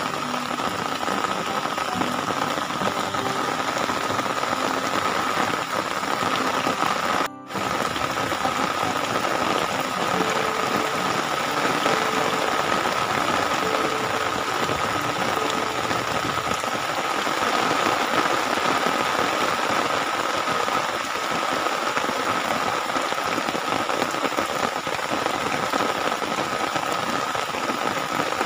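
Steady rain falling, an even hiss with a constant high-pitched tone running through it. The sound cuts out for a moment about seven seconds in.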